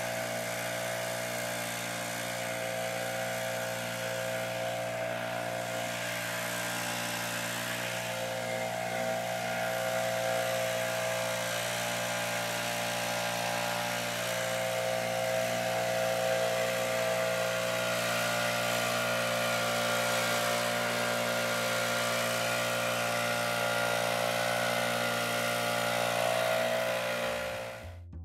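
Gas backpack leaf blower running steadily: an even engine drone with a rushing air hiss. It cuts off suddenly near the end.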